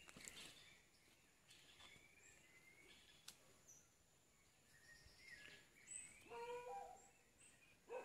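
Faint wild birdsong: scattered short chirps and whistles, with a louder, lower-pitched call about six seconds in.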